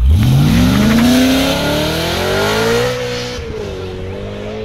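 BMW sedan's engine revving hard as the car accelerates away. The pitch climbs steadily for about three seconds, then levels off with a slight dip.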